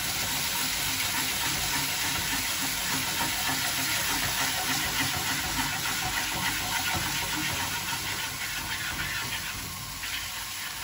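Diced potatoes sizzling in hot oil in a frying pan, a steady hiss, while a wooden spoon stirs and scrapes them around the pan.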